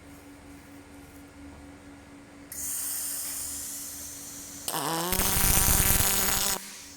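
Welding arc on aluminium: a hiss starts about two and a half seconds in, then the arc strikes near the five-second mark with a falling tone and buzzes loudly for about a second and a half before cutting off suddenly.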